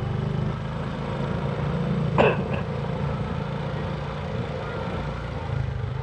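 Honda scooter's single-cylinder engine running steadily as the scooter rides along, with road and wind noise; a brief falling squeak about two seconds in.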